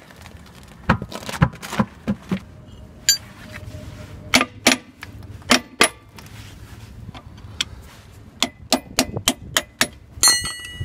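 Hammer blows on a UAZ's brake drum to knock it loose from the hub: a series of sharp metallic knocks, spaced out at first and then coming quicker near the end. Some blows leave a brief metallic ring.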